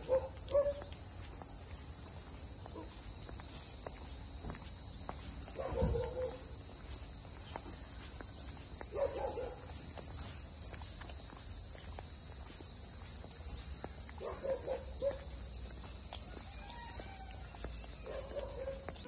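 Insects in the trees droning steadily at a high pitch, with short bird calls every few seconds and faint footsteps.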